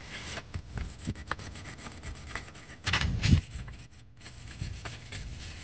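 Sandpaper rubbing by hand on an MG5's brake rotor disc, in irregular scraping strokes with a louder stretch about three seconds in, flattening the disc's uneven surface to stop brake squeal.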